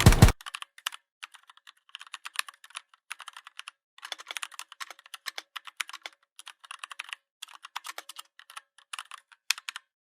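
Typing on a computer keyboard: quick runs of key clicks broken by short pauses. In the first moment a louder sound cuts off abruptly.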